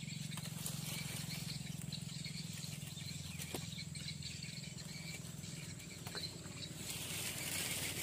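Steady chirring of forest insects, crickets and cicadas, with a few faint clicks and a short swell of rustling noise near the end.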